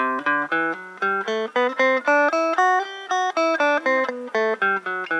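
Electric guitar playing a G scale one plucked note at a time, about four notes a second, climbing in pitch and then coming back down near the end.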